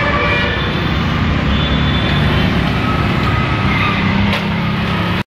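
Road traffic with a vehicle engine running close by, loud and steady; it cuts off suddenly near the end.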